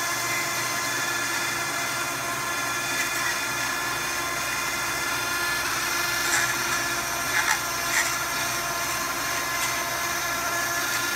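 Dremel rotary tool running steadily as it spins an ABS plastic rod against a cracked ABS dashboard piece, friction-stir welding the crack shut. A few short ticks in the second half.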